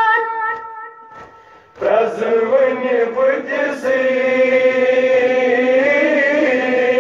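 Noha lament sung a cappella: a boy's high held note fades out in the first second, then after a short pause a group of lower voices chants the refrain together in long held lines.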